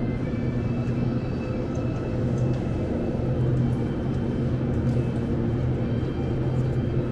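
Steady low electrical hum of a convenience-store refrigerated drinks cooler, its compressor and fans running, with a few faint thin higher tones over it.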